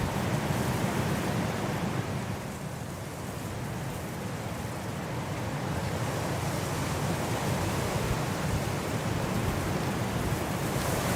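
Wind blowing steadily as a deep rushing noise, easing slightly a couple of seconds in and building again near the end.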